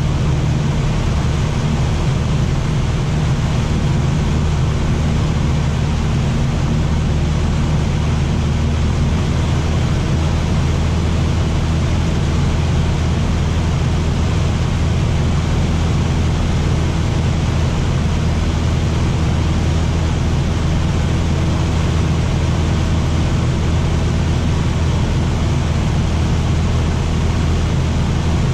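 Cessna 152's four-cylinder Lycoming O-235 engine and propeller in level cruise, a steady, unchanging drone heard from inside the cockpit.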